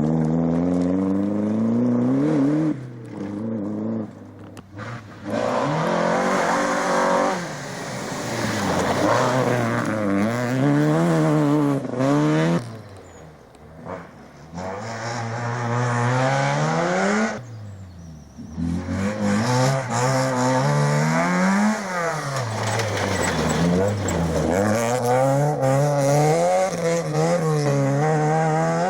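Rally car engines driven hard on a special stage, each engine's pitch climbing and dropping again and again with gear changes and lifts off the throttle. The sound dips briefly several times between runs.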